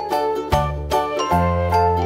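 Background music: a tune of quick struck notes over a bass line that changes every half second or so.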